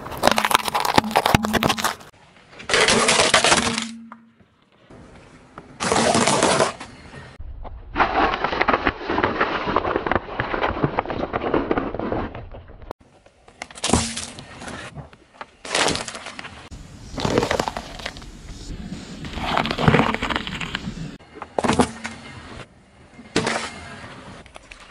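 Car tyre rolling over and crushing objects such as carrots and plastic cups of candy-coated chocolates: a series of separate crunching and cracking bursts, one running several seconds, most starting and stopping abruptly.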